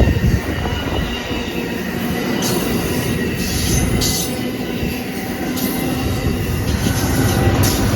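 A train running close by on the track: a steady loud rumble of wheels on rail, with brief high-pitched flashes of wheel squeal every second or two.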